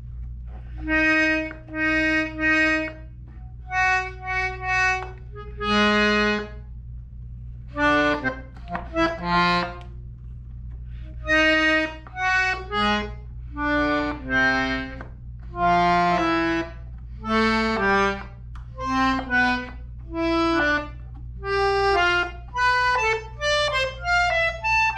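Tula button accordion sounding short separate notes and chords, one button press after another with brief pauses, coming quicker near the end. He is checking that each button gives a normal sound.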